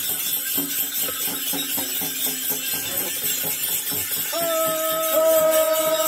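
Ritual percussion beating in a steady rhythm of about four to five strokes a second; about four seconds in, a held chant starts over it.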